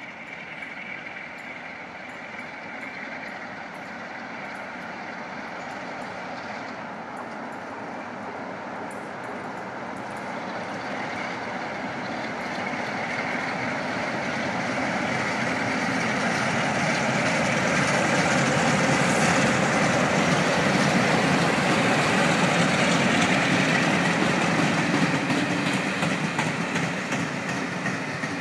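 A pair of Class 47 diesel locomotives with Sulzer engines working in multiple, approaching and passing at speed. The engine sound grows steadily louder, is loudest about two-thirds of the way in as the locomotives go by, then eases as the coaches roll past.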